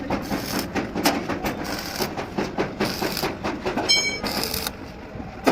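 Workshop clatter: rapid, irregular metal clicks and knocks, with a brief high-pitched squeak about four seconds in.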